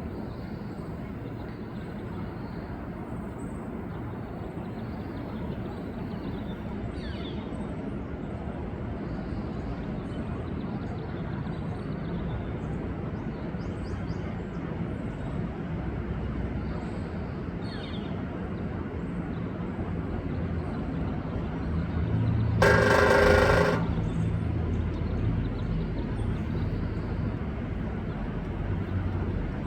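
One loud, ringing drumroll about a second long near the end: a northern flicker hammering rapidly on metal. A steady low background rumble runs underneath.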